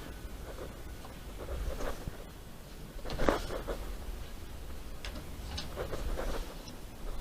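Light scraping and rustling from hand work on wall-sheathing materials, with a few short knocks and clicks, in a small room.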